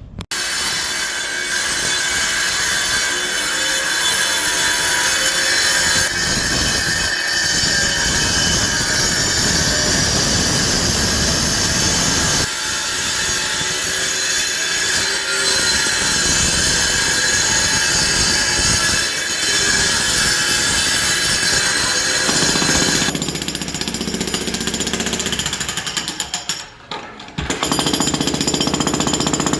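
Jackhammer pounding concrete in a fast, continuous hammering that pauses briefly near the end.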